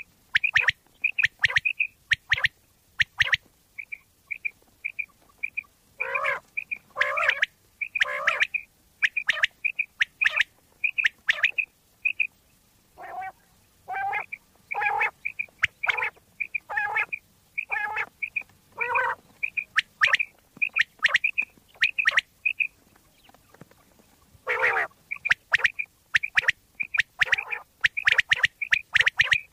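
Common quail calling: short, clear notes near 2–3 kHz given in quick repeated groups, mixed with lower, coarser calls. The calling thins out for a couple of seconds early on, then keeps going.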